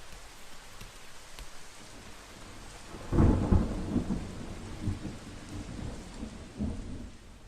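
Rain sound effect, a steady hiss of rainfall, with a clap of thunder about three seconds in that rolls on as rumbling and then dies away near the end.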